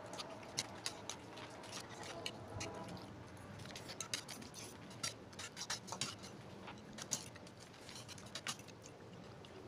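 Metal fork and spoon clinking and tapping against a plate while eating noodles: light, irregular clicks, several a second in places.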